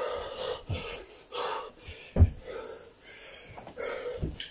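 A man breathing hard in loud, rasping gasps while doing burpees, with dull thumps as his hands and feet land on the carpeted floor, the loudest thump a little over two seconds in.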